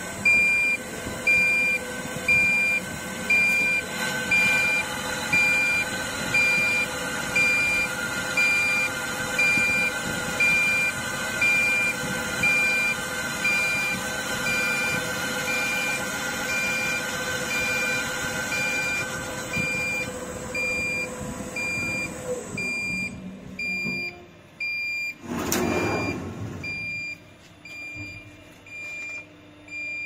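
CK6160Q wheel-repair CNC lathe machining an alloy wheel: the spindle turning and the tool cutting with a steady whine, over an electronic beep repeating about once a second. About 22 seconds in the cutting and spindle stop while the beeping carries on, and a brief rushing noise follows a few seconds later.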